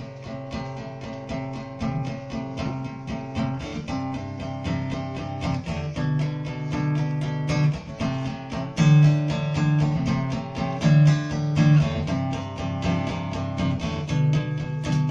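Acoustic guitar playing the instrumental introduction to a song: a steady, even run of plucked notes over sustained bass notes.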